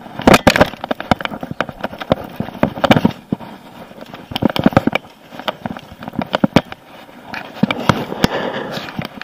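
Irregular clusters of loud sharp knocks, clicks and rattles from handling gear in an aluminium jon boat while a small catfish is hooked and reeled alongside, with hands bumping right at the microphone.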